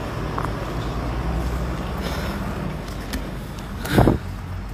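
Livestock truck's engine rumbling steadily as it drives away. About four seconds in there is a brief loud burst of noise.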